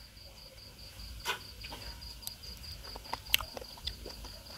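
Crickets trilling steadily in the background, with a few scattered soft clicks and taps.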